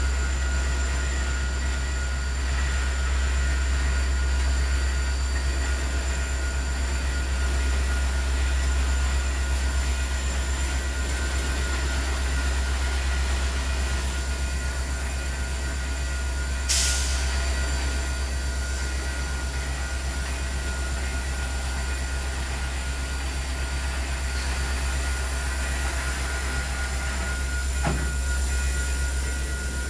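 Ballast work train rolling slowly past, its cars rumbling steadily on the rails with faint steady high-pitched squeals. A single sharp clack comes about 17 seconds in.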